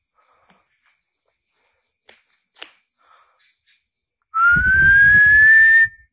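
A loud whistle rising slowly in pitch, held for about a second and a half from about four seconds in, with a breathy rumble under it. Before it, faint insects chirp steadily.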